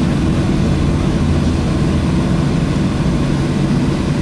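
Cabin noise of a Boeing 737-700 taxiing with its CFM56 engines at idle: a steady low rumble.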